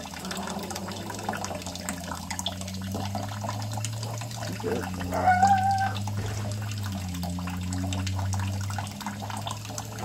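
Tap water running and splashing into a stainless-steel sink, with a steady low hum. About five seconds in, a green-cheeked conure gives one short bark-like call, the loudest sound.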